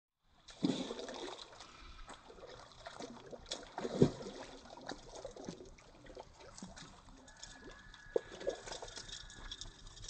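Water splashing irregularly at a pond's edge as a hooked carp thrashes at the surface, the loudest splash about four seconds in.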